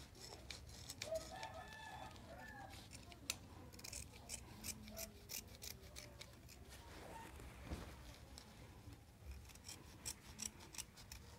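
Scissors cutting through denim fabric, a string of short, sharp snips.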